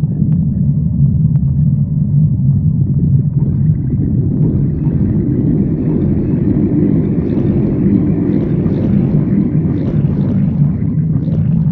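Stomach growling: a continuous low rumble that swells brighter and higher from about four seconds in, then settles back to a low rumble near the end.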